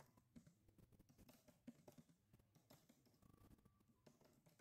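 Faint computer keyboard typing: a run of soft key clicks, several a second.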